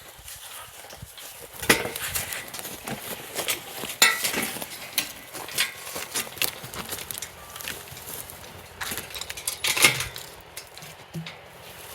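Irregular knocks and metallic clinks with footsteps, as a log is handled and pulled on a hand-drawn log dolly. The sharpest knocks come about two, four and ten seconds in.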